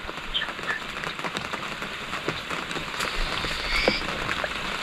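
Steady rain falling on the boat and water, with many small drop taps, and a few short high chirps over it, about half a second in and again near four seconds in.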